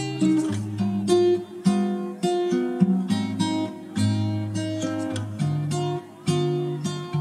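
Instrumental background music: acoustic guitar plucking notes and strumming chords.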